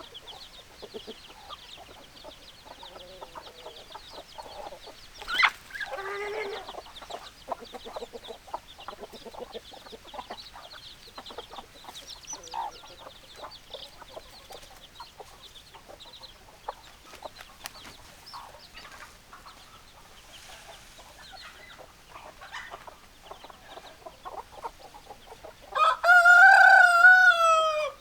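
Chickens clucking, many short calls, with a louder squawk about a fifth of the way in. Near the end a rooster crows loudly for about two seconds.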